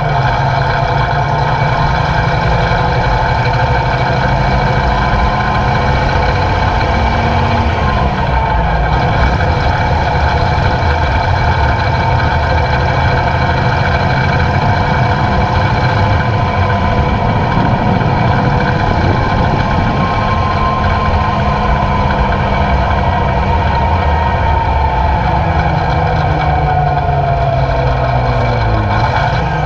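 A 1942 Diamond T 980 wrecker's Hercules six-cylinder diesel engine runs steadily as the truck drives along the road, heard close up from outside the cab. The engine note drops sharply a few times and climbs again: just at the start, about eight seconds in, and near the end.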